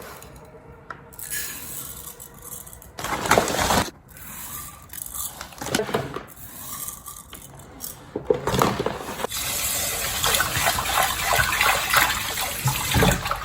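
A few short rattles of uncooked rice grains going into a pot, then tap water running steadily into the pot of rice for the first rinse, starting about eight seconds in.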